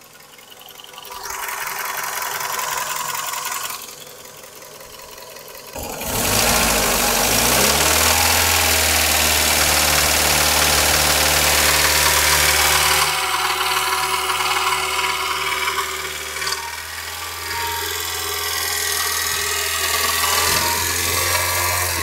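Toyota 3S-FE inline-four engine, 21 years old and warmed up, running with a knock that the owner says shows itself and means the engine needs repair. About six seconds in, a louder hum with a rush of air comes in. It rises in pitch for a couple of seconds, then holds steady and eases off a little about halfway through.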